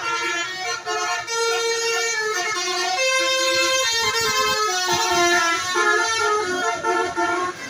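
A tour bus's Basuri musical air horn (a 'telolet' horn) playing a tune, a run of held notes that change pitch every fraction of a second.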